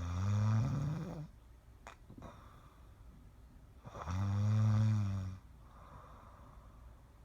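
Snoring: two long buzzing snores about four seconds apart, each a low drone that wavers in pitch, with a softer breath between them.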